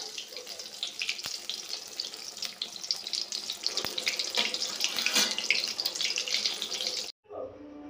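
Battered eggplant slices deep-frying in hot oil in a kadai: a steady crackling sizzle that cuts off suddenly near the end.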